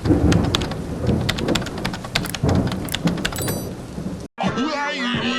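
A rain-like crackling noise with many sharp clicks for about four seconds, which cuts off abruptly. About a second before the end, an altered cartoon voice with widely swooping pitch begins.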